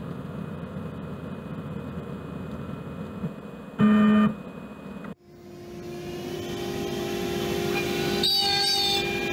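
CNC machine noise while the bit is lowered onto a touch-off plate, with a short beep about four seconds in as the bit touches the plate. About a second later the CNC spindle starts and spins up, its steady tone growing louder, and near the end the bit starts cutting into the square wooden blank turning on the rotary fourth axis.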